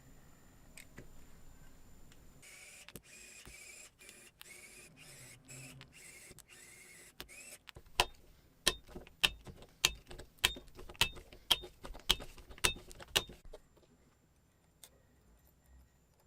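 Small metal parts being handled: a few seconds of scraping and rustling, then about ten sharp, ringing metallic clicks, roughly two a second, which stop suddenly.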